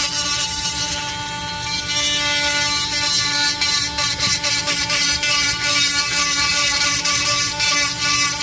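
Handheld rotary tool of the Dremel type running steadily with a motor whine, its bit grinding out a hole in a shift-linkage part to enlarge it so it fits onto its pin.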